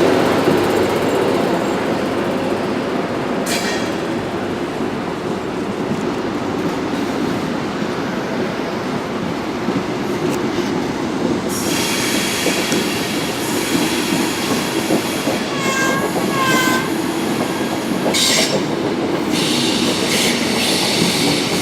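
Locomotive-hauled train of Mark 3 coaches departing and rolling past on the rails, steadily. The sound gets louder and brighter about halfway through, with a brief double squeal from the wheels a little after that.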